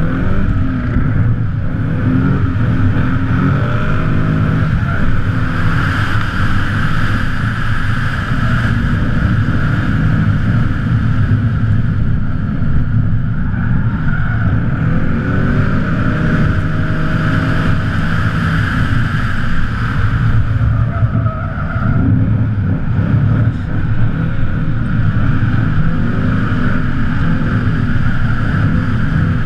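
BMW E36 Compact's V8 engine running hard through a drift run, heard from a camera on the bonnet. The revs swing up and down several times, most clearly about four seconds in and again around sixteen to nineteen seconds.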